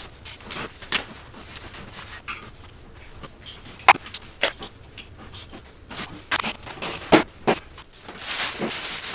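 Plastic baby swing being handled: a series of sharp clicks and knocks as its seat and frame are moved, the loudest about four seconds in. Near the end, plastic sheeting rustles as a clear bag is pulled over it.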